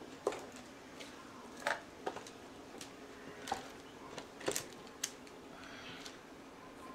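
Scattered light clicks and taps, about six over several seconds, from paint bottles and cups being handled and set down on a worktable, over a faint steady hum.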